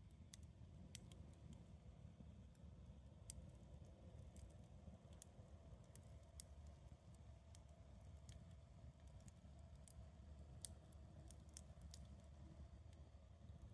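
Campfire of burning wood crackling faintly, with sparse, irregular sharp pops over a low steady rumble.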